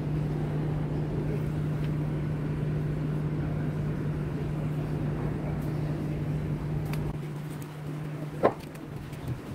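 A steady low mechanical hum holding one pitch, as of a running motor, which falls away about seven seconds in, with one sharp click near the end.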